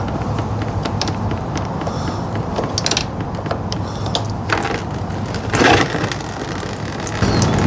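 Scattered small metal clicks and taps as the thermostat housing of a Honda VF1000 is worked loose by hand, over a steady low background hum. A short splashing surge comes about five and a half seconds in as coolant starts to run out of the opened housing.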